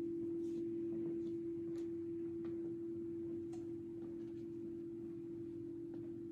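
A single pure tone from a sound-healing instrument ringing on at one steady pitch and slowly fading, with a few faint small clicks.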